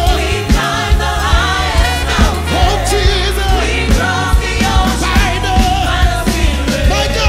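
Gospel choir singing with a live band: voices over steady bass and drums, with instrumental runs between the sung lines.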